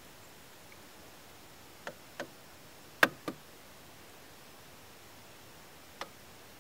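Five sharp knocks in a canoe: a pair about two seconds in, a louder pair about three seconds in, and a single one near the end, over a faint steady hiss.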